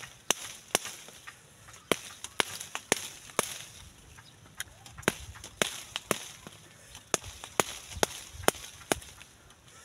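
Knife cutting into a firm green mango: a run of sharp, crisp cutting strokes, roughly two a second, that stop about a second before the end.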